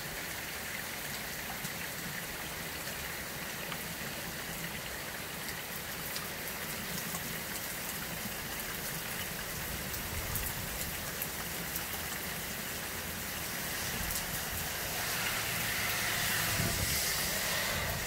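Heavy rain falling on grass and pavement, a steady hiss that swells louder near the end.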